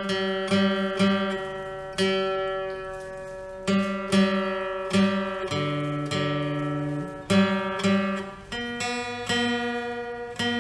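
A plucked string instrument playing slow ringing chords. A new chord is struck about once a second and left to fade, and the harmony shifts about halfway through and again near the end.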